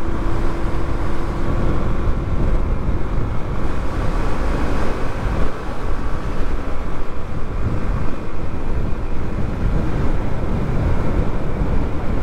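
Motorcycle riding at road speed: wind rushing and buffeting over the microphone on top of a steady engine and road noise.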